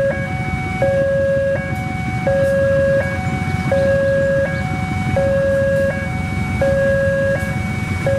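Level-crossing warning alarm sounding a two-tone chime that switches between a lower and a higher note about every three quarters of a second, over the low rumble of a diesel locomotive hauling passenger coaches through the crossing.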